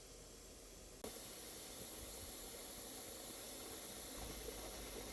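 Faint, steady hiss of background noise that jumps abruptly louder about a second in and then holds even.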